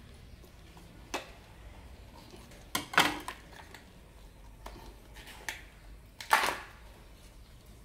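Scattered clicks and knocks from handling the plastic housing of a solar lamp during a battery swap, with two louder clusters of knocks, about three seconds in and near the end.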